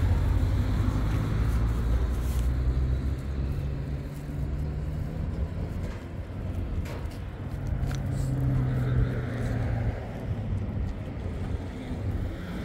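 A car's engine running as it drives, with a low hum that rises and falls in pitch a few times over road noise.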